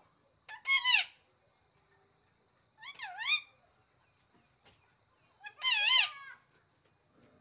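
Caged pet parakeet screeching three times, about two and a half seconds apart, each call loud and swooping up and down in pitch. Its owner takes the screeching for anger.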